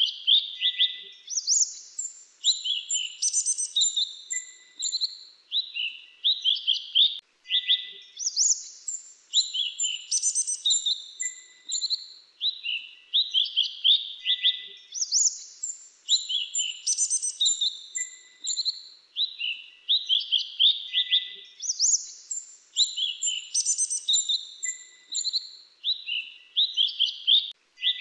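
A mantenan dagu kelabu songbird singing rapid, high chirping phrases with sharp whistled notes. The same song sequence repeats about every seven seconds.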